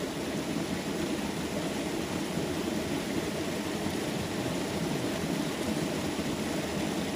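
Small waterfall pouring into a rock pool: a steady, unbroken rush of falling water.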